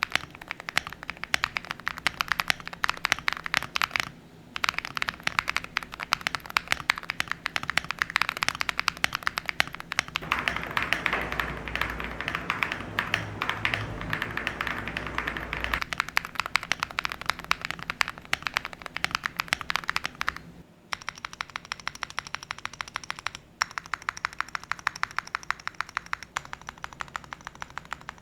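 Typing on a stock Lucky65 V2 mechanical keyboard with Gateron Lunar Probe switches and MT3 Susuwatari keycaps: a continuous run of keystroke clacks. The typing pauses briefly about four seconds in and again around twenty seconds in, and is faster and denser from about ten to sixteen seconds.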